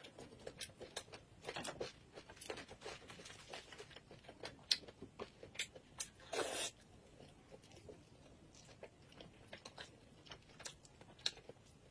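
A person chewing and smacking on soft braised pork belly: many short, irregular wet mouth clicks, with one louder sound lasting about half a second around six seconds in.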